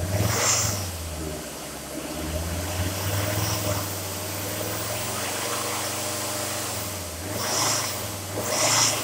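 Ford Ranger 3.2 L five-cylinder turbo diesel running at idle, revved briefly about half a second in and twice near the end, each rev rising and falling with a hiss from the turbo.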